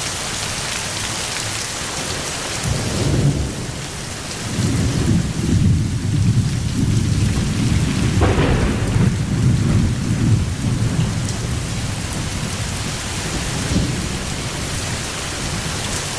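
Steady rain falling, with thunder rumbling low through the middle stretch and a sharper crack of thunder about eight seconds in.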